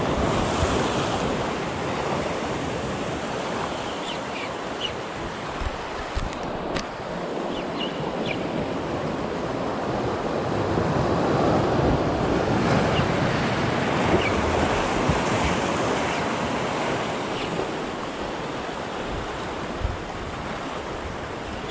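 Sea waves washing and surging, with wind buffeting the microphone; the wash swells and eases, loudest about halfway through. A few faint ticks sound here and there.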